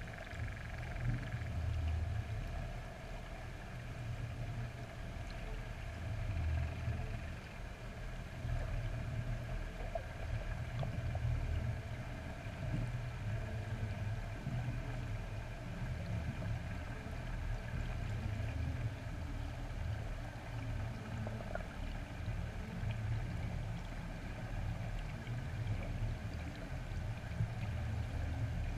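Muffled underwater ambience through a GoPro's waterproof housing: a low rumble that swells and fades unevenly, with a faint steady hum over it.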